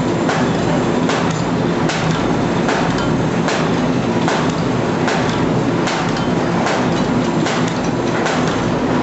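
Automatic paper bag making machine running, a regular clatter of mechanical knocks about one to two a second over a steady running hum as it forms kraft paper bags on its cylinder.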